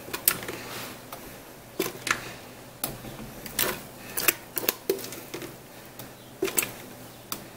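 A spatula scraping and knocking against a metal saucepan as thick polenta is emptied onto a metal sheet pan: a dozen or so irregular sharp taps and clicks with soft scraping between them.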